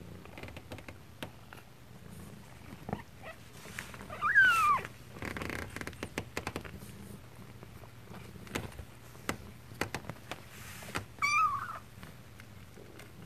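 Kittens mewing: a loud mew about four seconds in that falls in pitch, and a shorter one near the end, among soft clicks and rustling.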